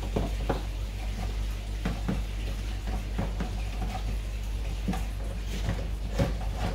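Scattered light clicks and knocks of plastic parts being handled as a hydroponic pump's feed tube is fitted and threaded through its plastic reservoir, over a steady low hum.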